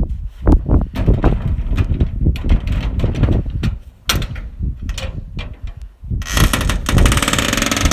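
Metal clanks, clicks and knocks from the latch and rear gate of an aluminium livestock stock trailer being worked open. About six seconds in, a steady rushing noise sets in.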